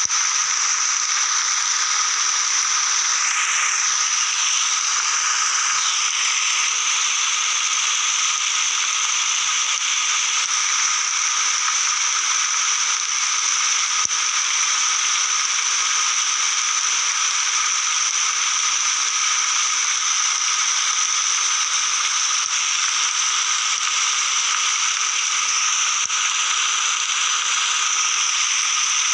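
Steady rainforest ambience: an even hiss of rain under a constant chorus holding two steady pitches, one high and one lower, of the kind frogs and insects make. A few faint brief calls rise out of it near the start and again near the end.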